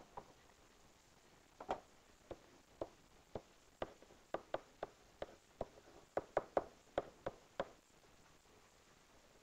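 Pen tapping against an interactive whiteboard while words are handwritten on it: a run of short, sharp, irregular taps, two or three a second, starting about a second and a half in and stopping shortly before eight seconds.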